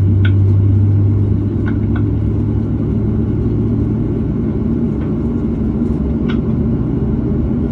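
Steady low cabin rumble inside a Boeing 737-700 during pushback, heard from a window seat over the wing. A strong low hum fades about a second and a half in, and a few faint clicks sound through it.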